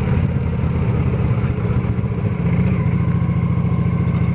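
Honda Shadow Aero V-twin motorcycle engine running under way, with a steady low exhaust note.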